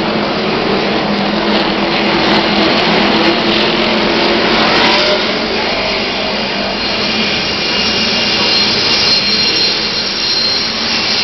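NASCAR Nationwide Series stock cars' V8 engines running at speed on the track, a loud continuous drone as the cars pass.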